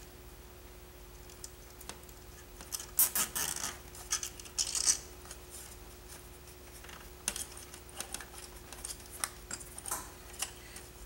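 Nylon zip tie being fastened, with short runs of ratcheting clicks as it is pulled tight, among small plastic handling clicks and scrapes on the model.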